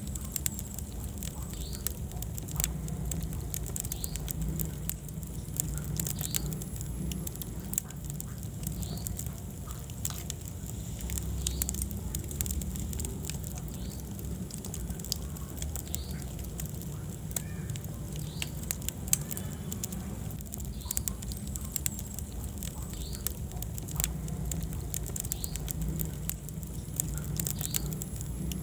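Wood fire in a fireplace crackling, with frequent irregular pops over a low, steady flame rumble. Faint short high squeaks recur every second or so.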